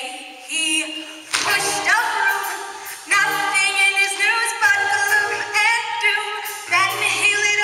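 Stage musical cast singing a show tune together, mostly women's voices, with accompaniment; a low bass line comes in about a second and a half in.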